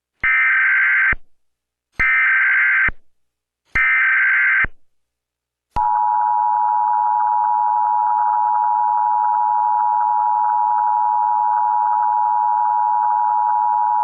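Emergency Alert System tones: three short bursts of SAME digital header data, each just under a second, then, about six seconds in, the two-tone EAS attention signal, a steady dual tone held for about eight seconds before it cuts off suddenly.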